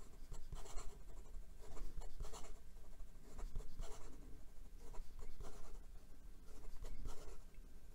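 Extra-fine steel fountain pen nib scratching across notebook paper in quick handwriting: many short, irregular pen strokes. The nib has a noticeable feedback, the light scratch typical of an extra-fine nib.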